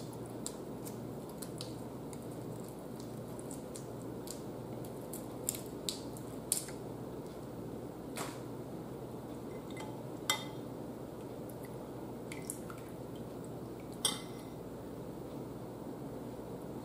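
Boiled shrimp and crab shells being peeled and picked apart by hand: a handful of sharp clicks and taps scattered several seconds apart, over a faint steady room hum.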